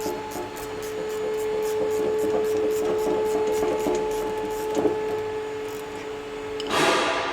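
Hand tools working on the metal hydraulic fittings of a two-post lift cylinder: a run of light clicking and rubbing over a steady hum, with a short loud rustle near the end.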